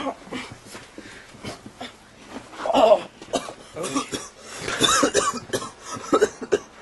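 A person coughing and spluttering repeatedly in short bursts, loudest about three seconds and again about five seconds in.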